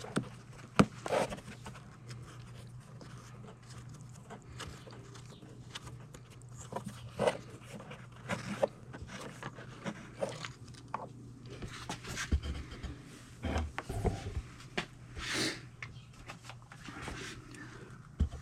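Scattered small clicks, scrapes and rustles of hands working at a small generator's oil filler, over a faint steady low hum, with a few sharper knocks in the second half.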